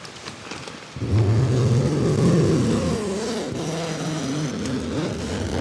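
Background music starting about a second in, with low, sliding, wavering tones.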